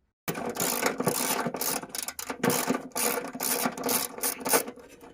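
Ratchet wrench clicking rapidly in quick, uneven runs as bolts are worked loose, starting abruptly and stopping near the end.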